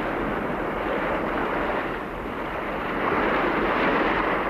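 Steady rushing of wind and sea surf on an open shore, with no voices, swelling and easing a little.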